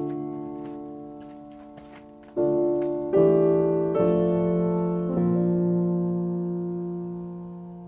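Slow piano music: sustained chords struck one after another, each left to ring and die away. A last chord about five seconds in fades out slowly.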